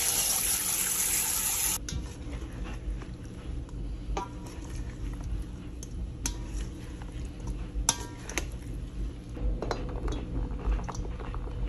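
Cold tap water spraying onto cooked pasta in a metal colander, cutting off about two seconds in. Then scattered clinks and scrapes of a utensil against a stainless steel mixing bowl as pasta salad is mixed, a few knocks ringing briefly.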